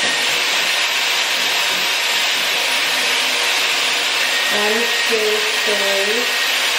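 Dyson Airwrap hair styler with a round volumizing brush, blowing air steadily: an even rushing hiss with a faint high whine. It cuts off abruptly at the very end as it is switched off.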